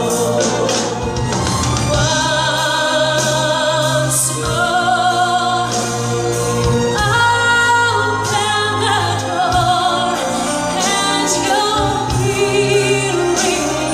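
Orchestral music with voices singing long notes with vibrato over a held low bass note.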